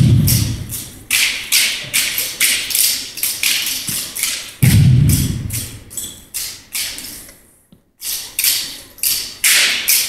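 Exhibition drill percussion: a quick series of sharp slaps and clacks at about two to three a second, with two heavy thuds, one at the start and one about four and a half seconds in. The sound breaks off briefly near the three-quarter mark, then the slaps resume.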